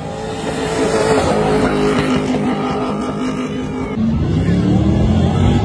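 Off-road 4x4 competition vehicle's engine running hard at high revs, holding a steady pitch, then dropping to a lower, steady note about four seconds in.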